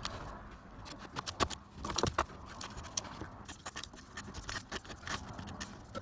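Scraping, rustling and irregular clicks of a 2.5 mm twin-and-earth cable being fed by hand through holes in floor joists and dragged over dusty debris, loudest about one and a half to two seconds in.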